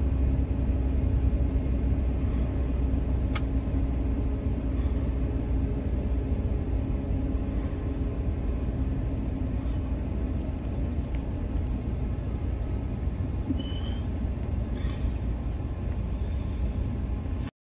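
Steady low rumble of a car on the move, with a single sharp click about three seconds in and a few faint short sounds near the end.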